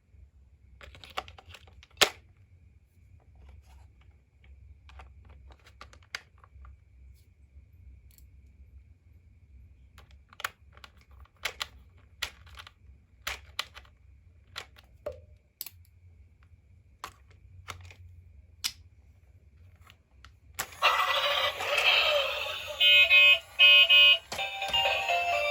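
Scattered light clicks and taps of small plastic parts being handled, one sharper click about two seconds in. About twenty seconds in, loud electronic music with repeating beeps starts.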